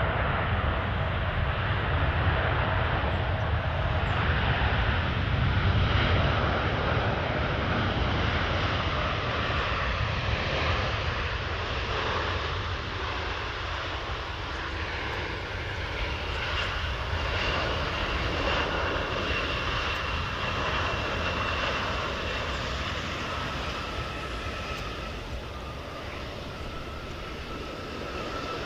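Boeing 787-9 Dreamliner's GEnx turbofan engines running at low taxi power: a steady jet rumble and hiss with a faint high whine, slowly fading as the airliner rolls away.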